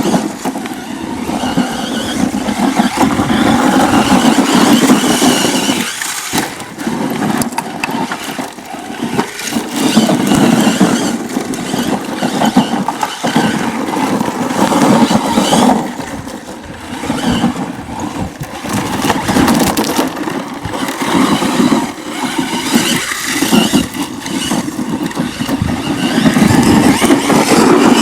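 A 1/5-scale FG Monster RC monster truck running on an electric brushless motor, driving continuously. Its motor, drivetrain and tyres rise and fall in loudness every few seconds.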